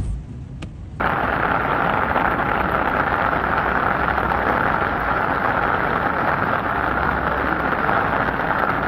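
Floodwater rushing, a loud steady noise that cuts in abruptly about a second in.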